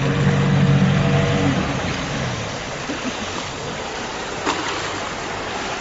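A 90 hp outboard motor on an aluminum speedboat running at speed. Its engine tone fades after about two seconds, leaving a steady rushing of water from the wash. There is a single sharp tick about four and a half seconds in.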